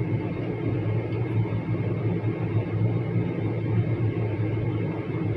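Steady low mechanical hum with a rumble, even and unbroken.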